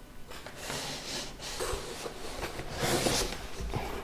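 Packaging being handled during unboxing: irregular rustling and scraping swishes, the loudest about three seconds in.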